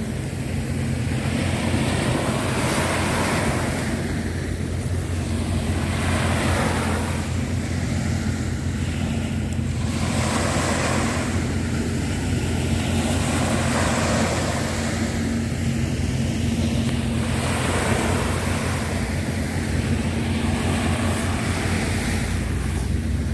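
Sea waves washing onto the shore, swelling and fading every few seconds, over a steady low rumble.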